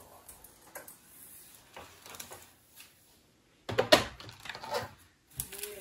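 Scattered faint clicks and light knocks of a sewing machine and its parts being handled, with a short run of louder knocks and rattling a little under four seconds in.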